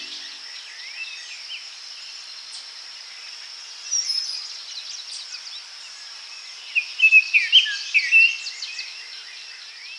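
Birds chirping and singing over a steady, high-pitched insect drone, with a cluster of louder chirps about seven to eight and a half seconds in.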